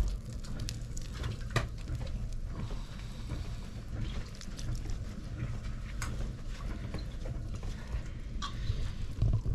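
Wet clay squelching and tapping under a potter's hands as a tall form is shaped on a turning wheel, with scattered small clicks over a steady low rumble.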